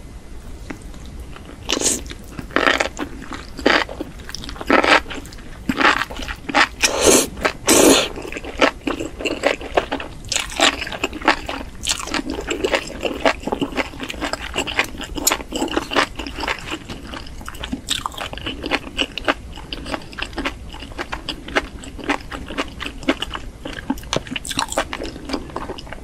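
Close-miked chewing of a mouthful of enoki mushrooms in a spicy red sauce. Sharp, wet crunches start about two seconds in and are loudest over the next six seconds, then give way to quicker, quieter chewing clicks and smacks.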